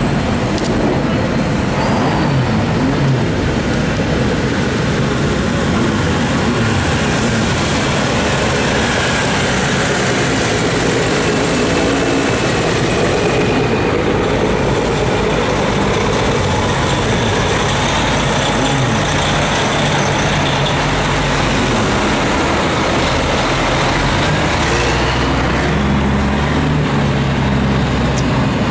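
Heavy truck's engine running loudly under power as the truck drives along the track, its pitch rising and falling, over a constant hiss.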